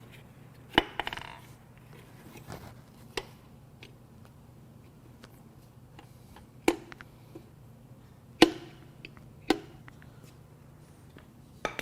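Scattered sharp metallic knocks and clinks from tools and metal engine parts being handled while the connecting rods and pistons are taken out, about six in all, some with a short ring. A faint steady low hum lies underneath.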